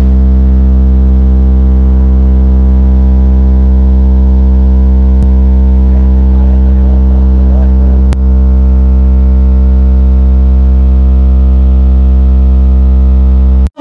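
Car audio system's array of subwoofers playing one steady, extremely loud bass tone for a sound-pressure-level measurement. The tone cuts off abruptly near the end.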